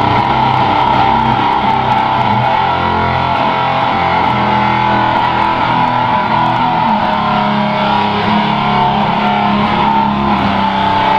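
Distorted electric guitar playing with bass, loud and steady, with long held chords.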